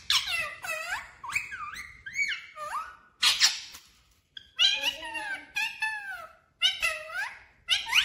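Rose-ringed parakeet (Indian ringneck) chattering: quick strings of calls that slide up and down in pitch, with one harsher screech about three seconds in and a short pause about four seconds in.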